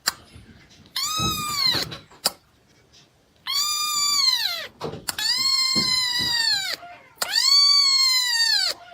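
A cat meowing loudly, four long drawn-out meows that each rise and then fall in pitch, with short pauses between them.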